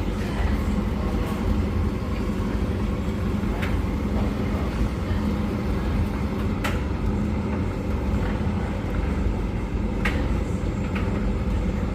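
Laundry machines running: a Hoover condenser tumble dryer and a Beko washing machine starting a Cottons 90 wash give a steady hum and low rumble, with a few light clicks.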